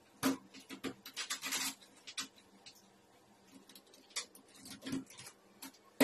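Irregular metallic clicks and rattles from a round door knob lockset being fitted and turned in a wooden door, with a sharp knock just after the start and a quiet stretch in the middle.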